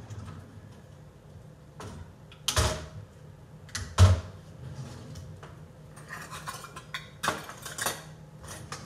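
Kitchenware being handled: a handful of scattered knocks and clinks, the loudest about four seconds in.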